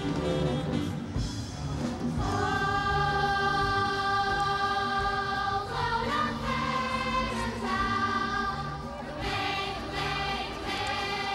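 Music with a choir singing long, held notes that change every few seconds.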